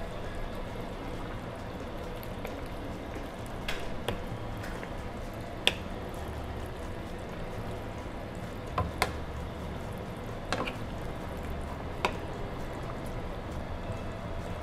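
Wooden spatulas stirring clotted pork blood and pork pieces in a frying pan: steady wet squelching, with several sharp knocks of the spatulas against the pan.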